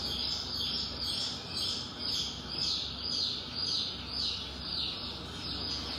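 A bird chirping over and over, about two short, falling chirps a second.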